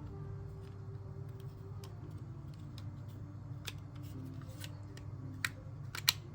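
Several sharp clicks of small hard parts being handled, spaced about a second apart, the loudest near the end, over faint background music and a steady low hum.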